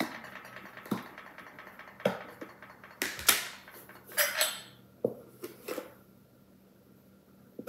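Kitchen handling sounds: a string of light knocks and clinks from containers and measuring utensils on the counter, with a brief rustle about four seconds in, then quiet after about six seconds.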